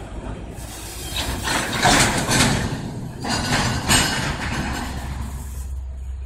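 Freight train boxcars rolling slowly past, steel wheels clattering and clanking in two bursts about two seconds apart, over a steady low rumble.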